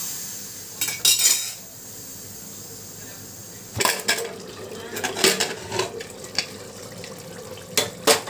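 Aluminium pressure cooker being opened: the whistle weight is lifted off with a brief hiss about a second in, then the inner lid clanks against the rim in a run of metallic clinks as it is twisted free and lifted out, with a few more clinks near the end.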